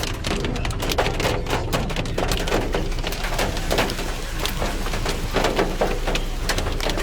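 Hailstones and rain pelting a hard surface, a dense irregular patter of sharp knocks over a steady rush.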